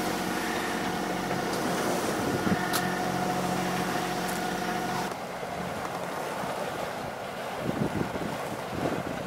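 A sailing boat's engine running steadily for about five seconds, then an abrupt change to wind and sea noise with a few gusts on the microphone.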